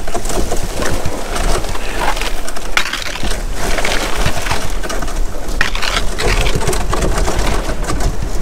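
Dry reeds scraping, crackling and rustling along a canoe's hull as it is paddled through a dense reed bed, a continuous dense crunching.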